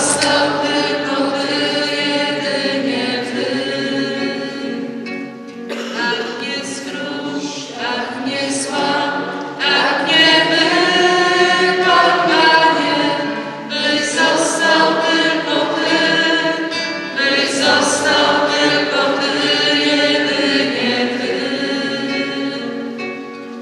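A group of voices singing a slow worship song together in long phrases, fading out near the end.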